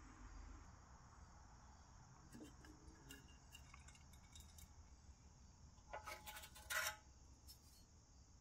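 Light metallic clicks and clinks of rusty pressed-steel toy parts, the bucket and boom of a 1959 Tonka dragline, being handled by hand. Mostly faint, with a louder rattling clatter about six to seven seconds in.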